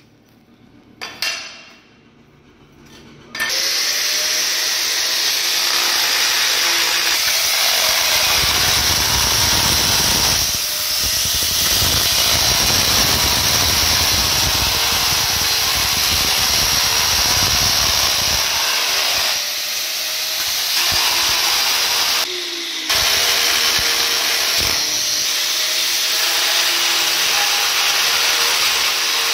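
Angle grinder fitted with a diamond core bit, starting about three seconds in after a couple of light knocks and running steadily with a whining motor as it bores a round hole through a ceramic wall tile. It dips briefly a few times, most sharply about two-thirds of the way through.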